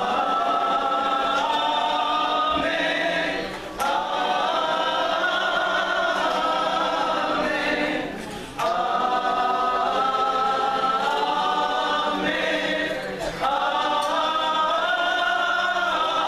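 Gospel vocal group singing in harmony, several voices holding long notes in phrases of about four to five seconds, each followed by a brief break for breath.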